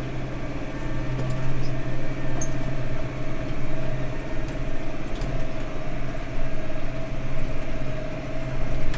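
Tractor engine running steadily, heard from inside the cab as an even drone.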